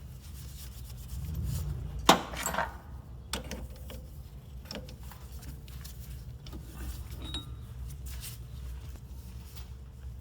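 Hand-cleaning of metal reamers and tools: rubbing and scrubbing, with one sharp clink about two seconds in and a few lighter knocks after. A steady low hum runs underneath.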